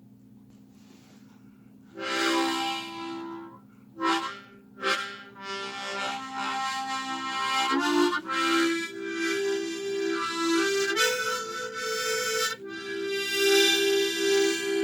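A free-reed instrument playing a slow melody of held notes, often sounding chords, which starts about two seconds in after a faint steady hum.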